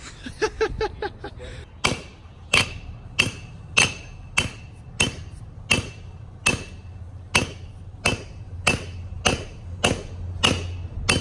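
Steel axe blade chopped repeatedly onto an anvil to blunt its edge: about fifteen sharp metallic strikes at an even pace of a little under two a second, each with a short ring, starting about two seconds in.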